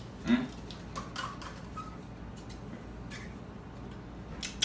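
Plastic cup and straw being handled and stirred: faint scattered clicks and rubs, with a brief hum of voice just after the start and a sharper click near the end.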